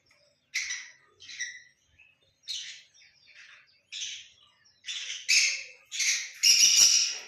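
Pet birds calling in a series of short, high chirps and squawks, about nine in all. The calls come closer together and grow louder toward the end, where the longest and loudest squawk falls.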